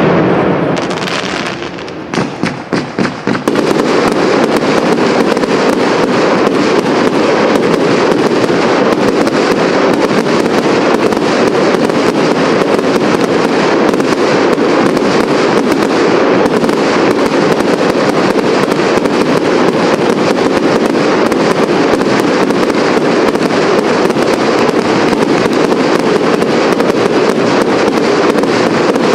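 Fireworks display: a large burst fading over the first two seconds, a few quick bangs, then from about three and a half seconds in a dense, continuous barrage of rapid small reports and crackle from many shells at once.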